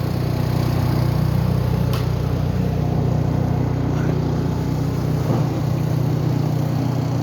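An engine running steadily with a constant low hum; its lowest part drops away about five seconds in.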